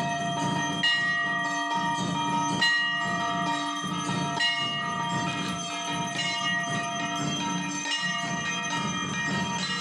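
Temple bells ringing, struck again every second or two, their metallic tones ringing on and overlapping.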